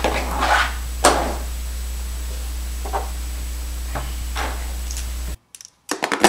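A handgun and police badge set down on a folding table and picked up, a few sharp knocks and clicks with the loudest about a second in, over a steady low hum. Near the end, after a brief silence, a quick clatter of something dropping into a plastic wastebasket.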